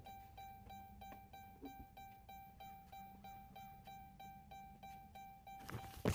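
Faint background music: a plucked-string tune repeating one note about four times a second. Near the end a louder rustling clatter sets in.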